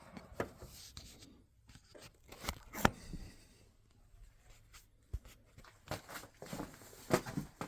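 Scattered sharp clicks and knocks with light rustling: hands handling wiring and small parts while working on a headlight switch circuit.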